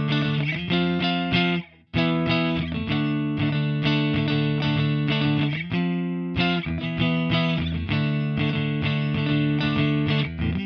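G&L SC-3 Deluxe electric guitar with stock MFD single-coil pickups, played through a Diezel VH4 amp and a Marshall 4x12 cabinet with an overdriven tone. Chords and notes are picked and held, with a brief stop just under two seconds in.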